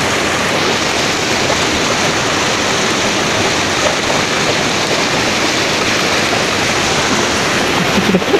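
Mountain river water rushing over boulders and small cascades: a steady, loud wash of noise.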